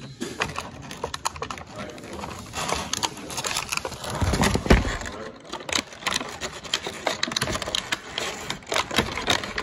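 Close handling noise: irregular rustling, scraping and clicking of things being handled right at a phone's microphone, with one heavy thump about four and a half seconds in.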